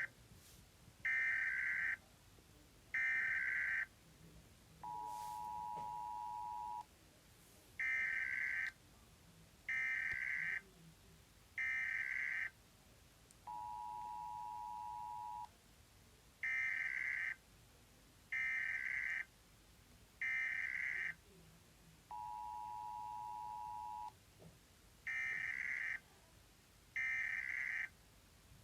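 US Emergency Alert System signal repeating in a loop: three short bursts of the high digital data tones, one about every two seconds, then a steady two-second two-tone attention signal in a lower pitch. The cycle repeats about every nine seconds.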